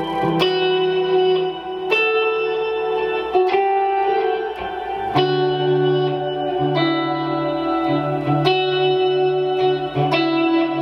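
Vintage Yamaha semi-hollow electric guitar played clean on its Porter WRH wide range neck humbucker, through a Source Audio Collider delay and reverb pedal for ambient tones. Slow picked chords and notes come every second or so, each ringing on into the next.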